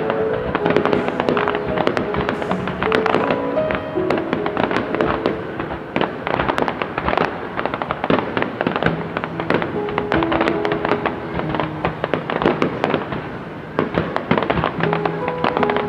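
Fireworks display: a dense run of bangs and crackles, many reports a second, with music playing alongside.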